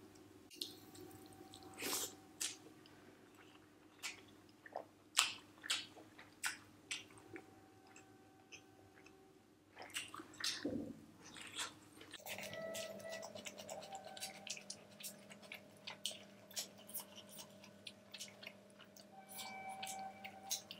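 Close-miked chewing of chicken biryani eaten by hand: wet mouth clicks and smacks at irregular intervals.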